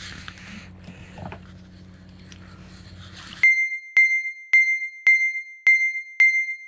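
Faint background hiss with a low hum, then about three and a half seconds in it cuts to a repeated electronic ding: a clear high ping struck about twice a second, each ringing briefly. The ding is an edited-in sound effect.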